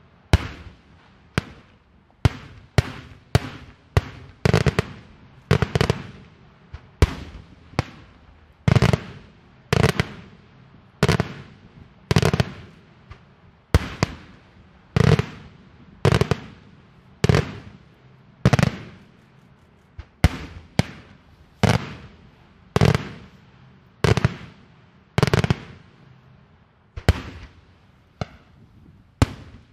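Daytime aerial fireworks shells bursting in a steady run, one or two sharp bangs a second, each trailing off briefly.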